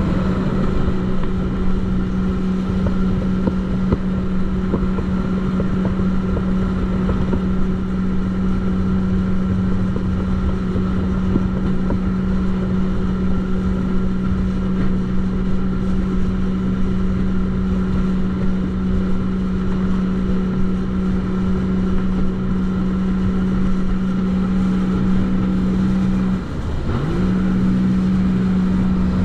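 Jetski engine running at a steady high speed with a constant pitch, over a rush of wind and water. About three-quarters of the way through, the revs drop briefly and climb straight back, as when the throttle is eased off and squeezed again.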